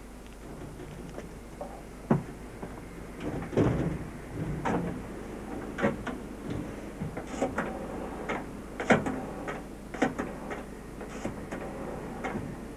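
A string of irregular knocks, clicks and rattles from something being handled, with short rustling between them. The sharpest knocks come about two, nine and ten seconds in.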